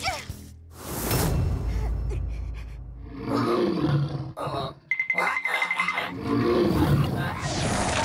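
Cartoon gecko monster roaring, two drawn-out cries, over background music.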